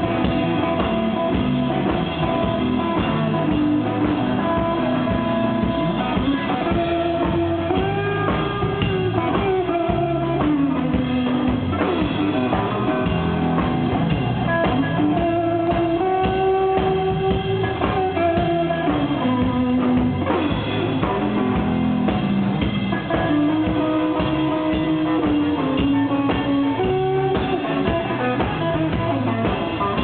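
Live blues-rock band playing: a hollow-body electric guitar leads over a drum kit. The guitar plays long held notes that bend up and down.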